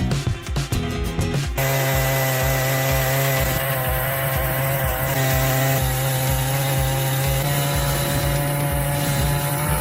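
Chainsaw starting to cut about a second and a half in, running at a steady, even pitch as it saws through a large oak trunk, over background music with a steady beat.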